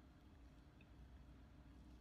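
Near silence: room tone with a low steady hum.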